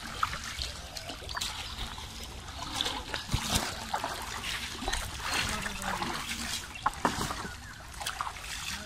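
Shallow river water splashing and trickling around wading legs and a bamboo-framed fishing net pushed through it, in short irregular splashes.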